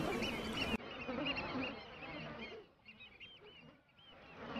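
A flock of shorebirds calling, many short arched calls overlapping, over a low wash of surf; the calls thin out and quieten about three seconds in.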